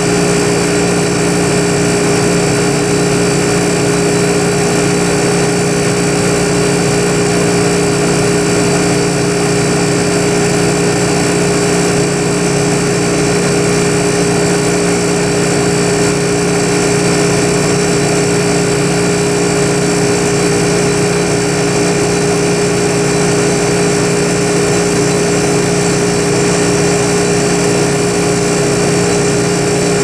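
Vintage Westinghouse 5,000 BTU window air conditioner running steadily: a constant low hum from its reciprocating R22 compressor under the even rush of air from the fan.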